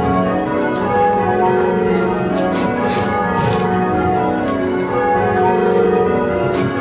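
Change ringing on a ring of eight church bells cast by Taylor's in 1925, the tenor weighing about 14 cwt and sounding F#. The bells strike one after another in a steady, unbroken rhythm, their tones overlapping and ringing on.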